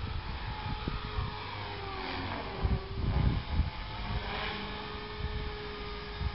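Logictech LT 2100 radio-controlled helicopter in flight: the whine of its motor and rotor changes pitch, sliding down and back up as it manoeuvres, over a low rumble.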